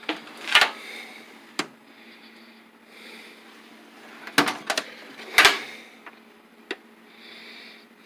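Tool chest drawers being opened and shut, with a series of sharp clacks and knocks.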